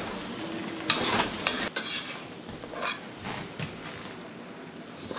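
Spatula scraping and clattering against a wok as chow mein noodles are stir-fried, over a light steady sizzle. A few sharp scrapes come about a second in, then it goes fainter.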